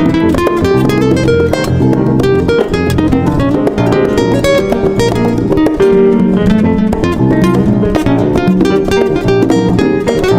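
Background music: acoustic guitar playing quick plucked and strummed notes in a flamenco-like style.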